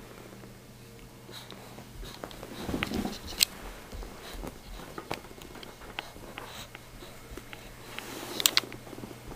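Handling noise of a handheld camcorder: scattered light clicks and taps over a steady low hum, with two sharp clicks standing out, one about three and a half seconds in and one near the end as a toddler's hand reaches at the camera.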